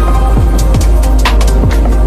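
Electronic dance music with a steady kick-drum beat, a heavy bass line and crisp cymbal hits.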